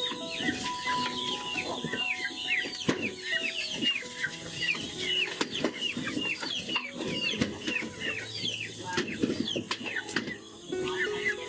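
Chickens clucking and calling, with a dense run of short, high, falling chirps, and a few scattered knocks.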